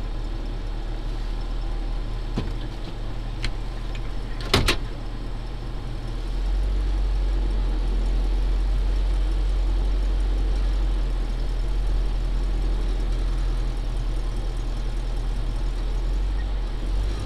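Truck engine running steadily, its low hum growing louder about six and a half seconds in. A single sharp knock about four and a half seconds in, with a few lighter clicks before it.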